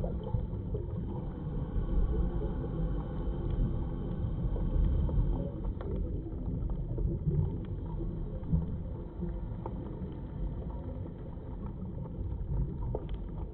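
Underwater ambience heard by a submerged camera: a steady, muffled low rumble with scattered faint clicks.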